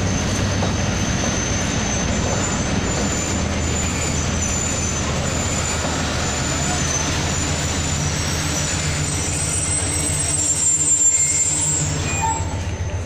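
Passenger train coaches rolling slowly into the station, wheels rumbling on the rails, with thin high-pitched brake and wheel squeals that come and go as the train slows. The squeal is loudest about ten to twelve seconds in, and the rumble eases just after.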